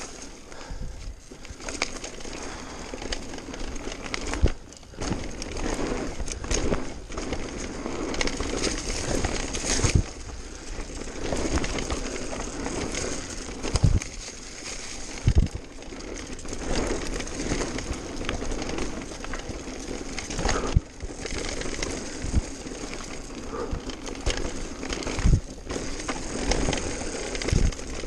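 Mountain bike riding fast downhill on a leaf-covered dirt trail: a steady rush of tyres crackling over dry leaves and stones, with the bike rattling and a few sharp knocks as it hits bumps.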